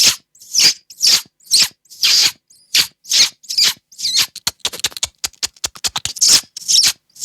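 A beatboxer's mouth-made bird sound effect: a string of short, high chirps and squeaks, some gliding in pitch, coming faster in a quick run in the middle.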